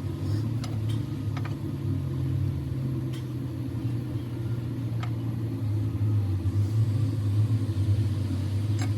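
An engine running steadily at an even low speed, with a few faint clicks or taps over it.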